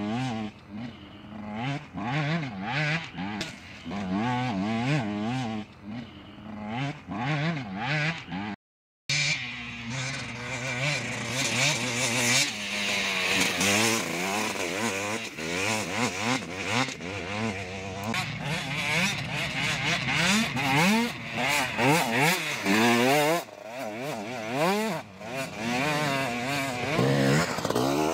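Several off-road dirt bikes revving up and down over and over, their engine notes overlapping as they race through deep sand. The sound cuts out for a moment about a third of the way in.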